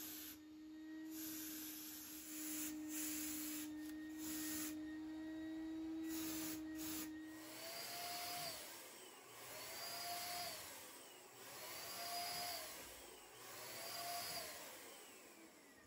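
Electric paint sprayer running as stain is sprayed onto wooden chairs, a steady rushing motor-and-air noise. A steady tone sits over it in the first half, and four rising-then-falling tones repeat about every two seconds in the second half.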